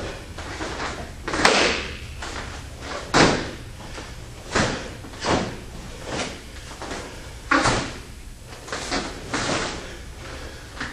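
Sharp, irregular snaps from a taekwondo uniform cracking with each block, punch and kick of a solo pattern, mixed with bare feet striking the floor. There are about eight snaps, the loudest near the start.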